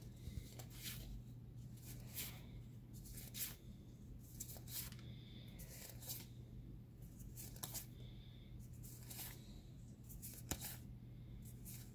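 Magic: The Gathering cards being flipped and slid through the hands: soft, irregular flicks and rustles, over a faint steady low hum.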